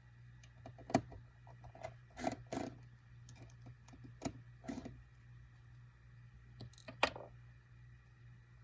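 Scattered small clicks and taps of tools and fingers working on the opened iPhone 5c's internal parts, about a dozen irregular ticks with the sharpest about a second in and about seven seconds in, over a steady low hum.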